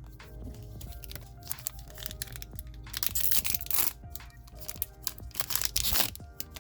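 Foil trading-card booster pack wrapper crinkling and tearing open, with two longer rustles about halfway through and near the end, over background music.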